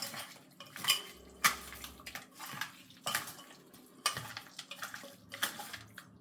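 Metal clinking and knocking against a bowl as raw mutton is mixed with mustard oil, turmeric and salt to marinate it, in irregular clinks about once a second.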